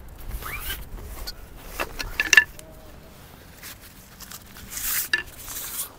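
Handling noise of a travel fishing rod being unpacked from its fabric bag: rustling, light knocks and clicks, a short metallic clink a little over two seconds in, and a longer rustle of the bag near the end.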